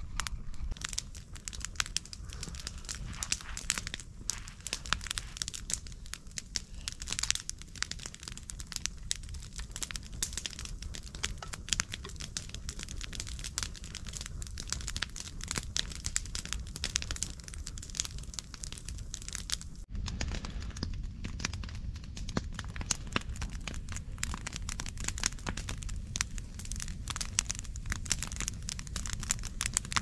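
Wood campfire crackling and popping, a dense run of sharp snaps over a steady low rumble, with a change in the sound about two-thirds of the way through.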